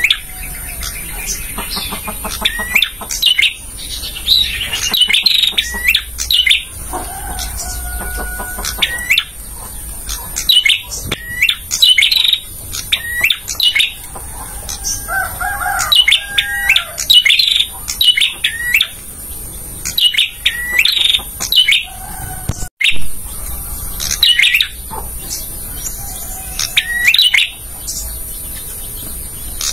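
Male prenjak singing: rapid, loud series of sharp chirping notes repeated in bursts, with short gaps between phrases. A steady high hiss sits underneath, and the sound drops out for an instant about three-quarters of the way through.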